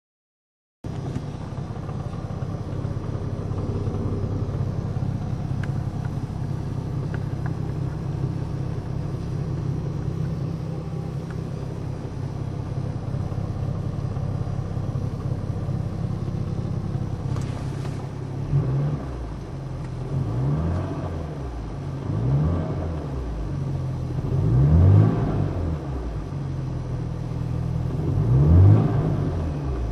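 BMW 335i E92's turbocharged inline-six idling steadily, then revved in short blips about five times in the second half. The engine is making an unusual sound since something struck and tore up parts underneath the car.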